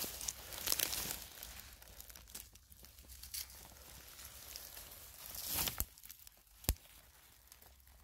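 Rustling and crackling of dry material, uneven in loudness, with one sharp snap about two-thirds of the way through.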